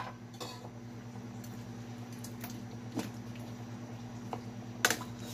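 A ladle knocking against the side of a stainless steel stockpot while stirring soup: a few scattered clicks, with the loudest knocks near the end. Under them runs a steady low hum.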